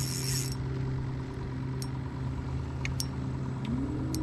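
A steady low motor hum with a few faint clicks. Near the end one tone in the hum rises briefly, then holds.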